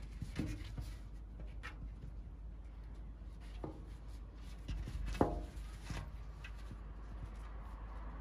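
Faint scuffing and scratching of a kitten's paws on rough concrete as it plays, with scattered light clicks and one louder short sound about five seconds in.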